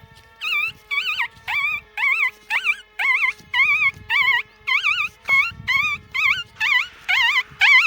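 A man imitating a dog, making a quick run of short, high, wobbling yelps and whimpers, about two a second, over a faint steady background tone.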